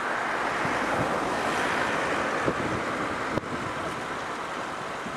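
Steady rushing noise of a wind-driven brush fire and the wind itself, with a few faint crackles; it drops briefly about three and a half seconds in.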